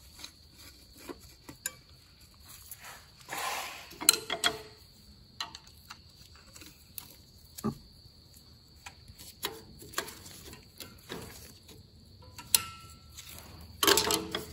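Sparse metallic clicks, taps and light scrapes of steel brake parts being handled while a band brake shoe return spring is worked back into place in an Allis-Chalmers 175 tractor's rear brake housing. There is a short rustle about three and a half seconds in and a louder clatter near the end.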